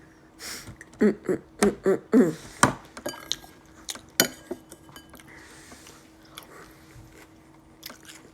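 A person drinking leftover cereal milk: a quick run of short gulping sounds about a second in, then a couple of sharp clinks of dishware and quieter scattered handling sounds.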